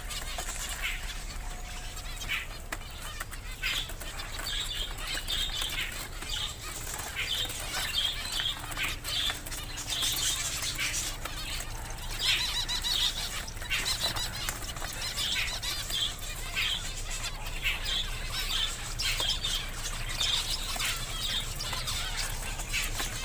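Caged finches chirping and fluttering: many short, high chirps repeating throughout, with bursts of wing flapping.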